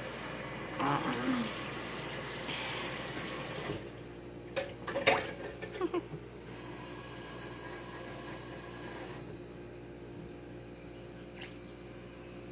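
Water running from a kitchen tap in two stretches of a few seconds each, turned on and off, with a few knocks and clatters between them.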